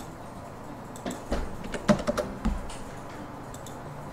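Computer keyboard typing: a short run of about eight keystrokes, starting about a second in and lasting about a second and a half, with one stroke louder than the rest.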